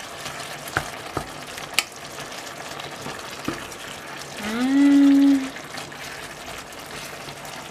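Chicken and vegetables in sauce sizzling and bubbling in a frying pan as a wooden spatula stirs them, with a few light knocks of the spatula against the pan. About halfway through, a voice hums one steady note for about a second.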